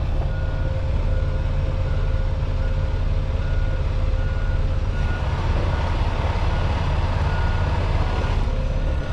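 Reversing alarm beeping in an even, steady beat over the low, steady rumble of a semi truck's diesel engine as the rig backs up; the beeps stop shortly before the end.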